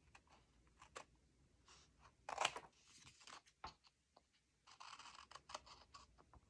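Scissors snipping the corners of cardstock pockets: a few short, quiet cuts and clicks with light paper rustling. The loudest snip comes about two and a half seconds in.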